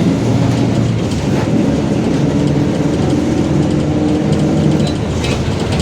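Mercedes-Benz OF-1721 Bluetec 5 city bus running: a steady, loud diesel drone and rumble with held tones that shift in pitch a little, the drone the title puts down to the differential.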